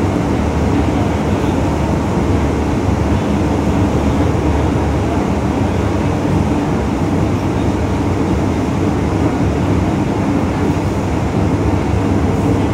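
An MTR M-train (Metro-Cammell electric multiple unit) running through a tunnel, heard from inside the carriage as a steady, unbroken low rumble.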